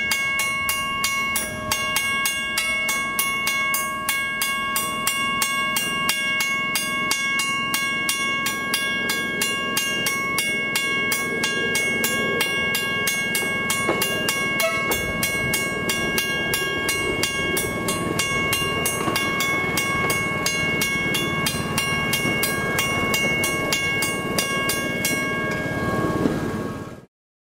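Mechanical railway level-crossing bell ringing continuously in rapid, even strokes, several a second, with ringing overtones. A low rumble builds under it in the second half, and the sound cuts off abruptly near the end.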